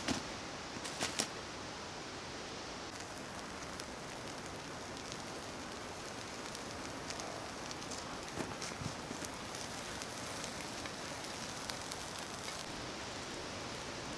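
Chopped vegetables sizzling in a frying pan over campfire embers: a steady hiss with scattered small crackles. A few sharper clicks come in the first second or so.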